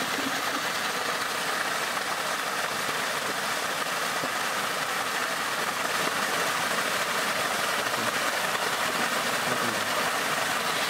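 A steady, heavy stream of water gushing from a large irrigation pipe and splashing onto a metal plate and the wet ground below.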